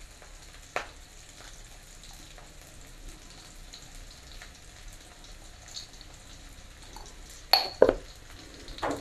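Oil sizzling softly in a wok where chilli, shallots, garlic and bay leaves are frying, a steady hiss. There is a small click about a second in and two sharp knocks near the end.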